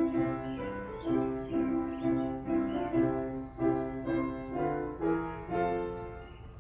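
Piano being played: a slow, steady run of chords, struck about twice a second, each ringing on before the next.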